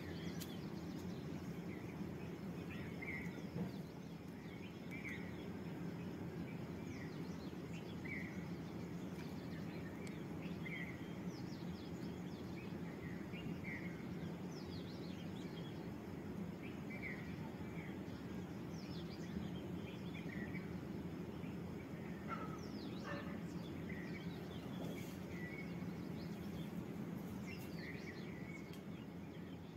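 Steady low background hum with faint short chirps repeating about once a second and a few light scratchy ticks.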